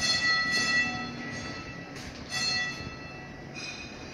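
Tram gong being struck: about four metallic strikes a second or so apart, each ringing and fading away, the last one higher in pitch.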